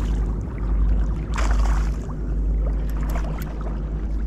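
Rushing river water with a heavy low rumble on the microphone, and a short louder rush of water about a second and a half in.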